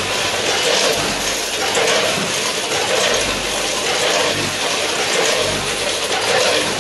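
Multihead combination weigher running with product dropping through its stainless steel hoppers and discharge chute: a steady mechanical noise that swells about once a second as the machine cycles.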